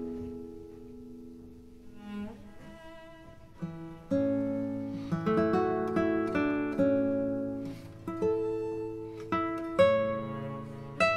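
Background music: a gentle plucked-string instrumental, its notes struck and left to ring, with a low bass line coming in about four seconds in.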